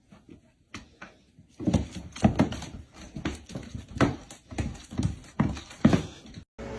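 Irregular soft thumps and knocks, about two a second, starting about one and a half seconds in after a near-quiet start.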